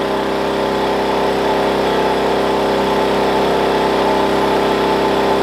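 WEN 56203i inverter generator's small four-stroke engine running at a steady speed with eco mode off, under load from a portable air conditioner.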